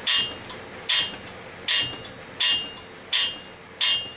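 A small-engine valve on a Briggs and Stratton 3.5 hp engine is being struck down hard onto its seat again and again, a little under a second apart. Each strike is a sharp metallic clack that rings briefly. This is done forcefully so the valve face marks a visible contact line against the seat.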